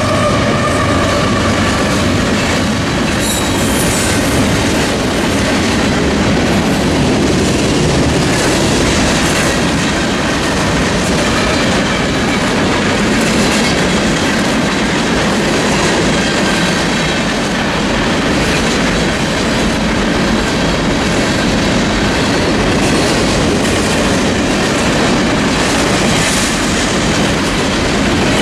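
Union Pacific manifest freight train rolling steadily past at a grade crossing, its wheels clacking over the rails with a continuous rumble.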